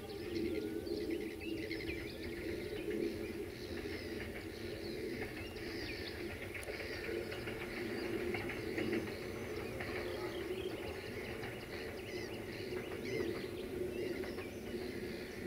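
Many small birds chirping and singing in short calls over a steady low hum.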